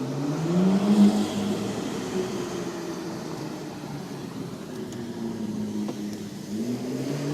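McLaren MP4-12C's twin-turbo V8 accelerating: its note rises sharply and is loudest about a second in, then settles, and climbs again near the end.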